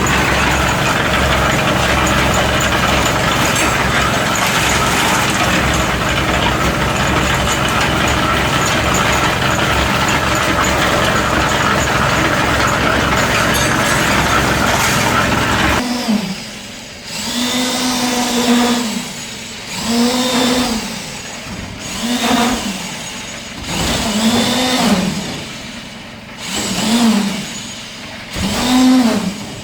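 Backhoe's diesel engine running steadily. About halfway through, the sound changes abruptly to a whine that rises and falls roughly every two seconds, each time with a swell in loudness.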